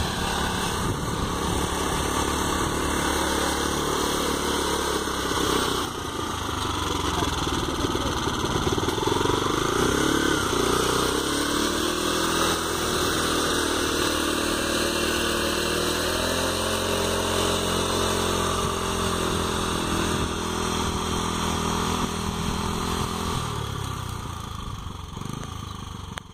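Small engine of a homemade tractor running steadily while it pulls a plough through the soil, its pitch wavering as the load changes. It grows fainter over the last few seconds as the tractor drives away.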